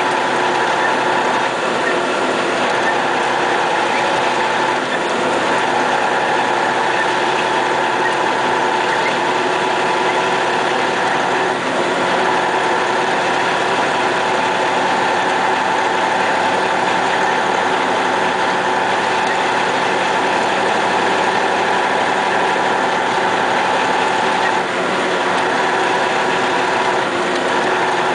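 MAZ snowplough truck's diesel engine running steadily, heard from inside the cab as a constant drone with a steady mid-pitched hum.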